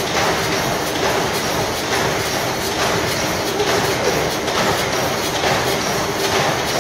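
Horizontal steam mill engine running, giving a steady rhythmic mechanical clatter with a faint steady hum.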